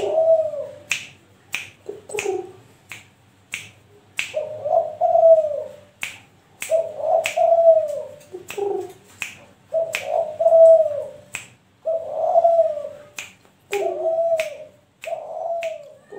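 A 3-month-old Kelantan-line spotted dove (tekukur) cooing steadily in repeated phrases, one about every second and a half. Its singing is in full flow (gacor). Running under it is a series of sharp, regular clicks, a little under one a second.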